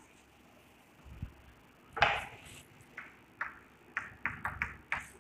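Chalk on a blackboard: a single loud knock about two seconds in, then a run of short taps and scrapes as letters are written.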